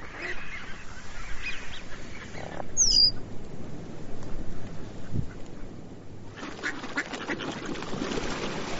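A flock of dabbling ducks, mallards among them, quacking and calling. About three seconds in comes a short high whistled call, and the calls grow busier near the end.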